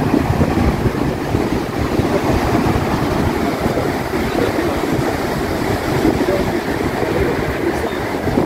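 Heavy storm surf breaking and washing over rocks, a continuous rush of churning whitewater, with wind gusting on the microphone.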